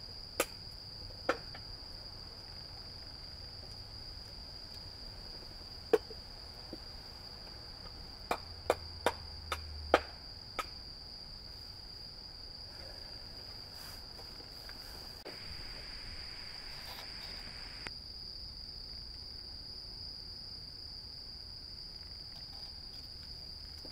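Crickets trilling in a steady, continuous high-pitched drone, with a few sharp clicks and knocks about six to ten seconds in.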